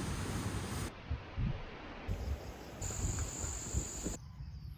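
Strong wind gusting and rumbling on the microphone, with a steady high insect trill in the middle of it. The background changes abruptly several times, about once a second.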